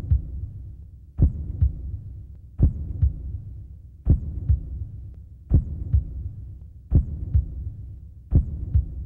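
Slow, steady double thumps like a heartbeat, a strong beat followed by a softer one, repeating about every one and a half seconds over a low hum.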